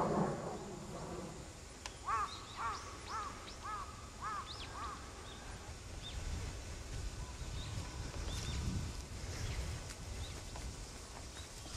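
A bird calls a quick run of about six arched notes, starting about two seconds in. Faint, scattered high chirps of small birds follow over a low rumble.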